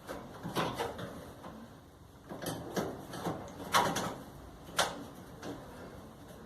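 Irregular knocks and clatter of metal and plastic parts being handled and fitted while a clothes dryer is reassembled, about eight separate strikes with the sharpest about four and five seconds in.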